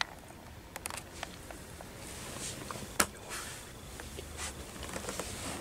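Soft rustling of a hand stroking a dog's long coat, with scattered faint clicks and one sharp click about three seconds in.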